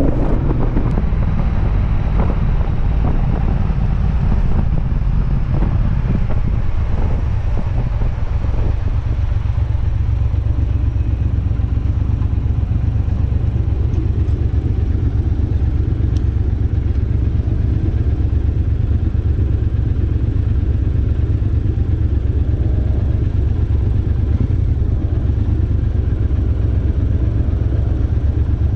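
Triumph Bobber's 1200 cc parallel-twin coming off the throttle as the bike slows, with wind and road rush that dies away over the first several seconds. It then idles steadily at a stop with a low, even pulse.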